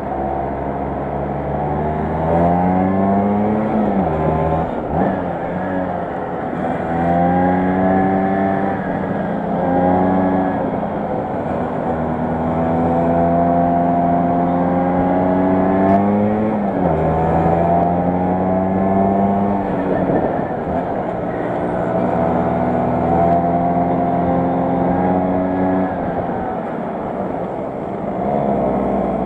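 Vespa 125 Super's two-stroke single-cylinder engine running under way, its pitch repeatedly climbing with the throttle, then falling, with sharp drops about 4 and 16 seconds in.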